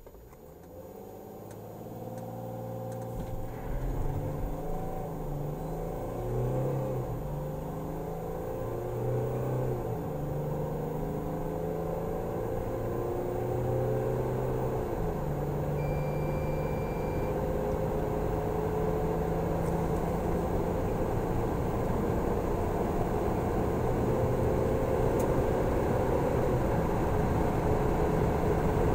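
Mercedes Sprinter 319 CDI's 3.0-litre V6 diesel heard from the cab, accelerating hard from a standstill. Its note rises and drops back at each upshift of the seven-speed automatic several times in the first fifteen seconds, then runs on at high revs, growing louder as speed climbs.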